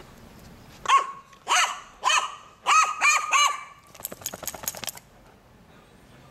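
A crow giving six short barking calls in quick succession, a dog-like "wan wan". They are followed by a second-long run of quick sharp clicks.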